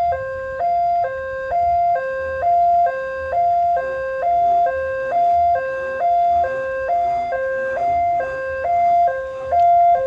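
Railway level-crossing electronic warning siren. It sounds a fast two-tone alternation, a high note and a low note switching about twice a second, warning of an approaching train while the barriers close.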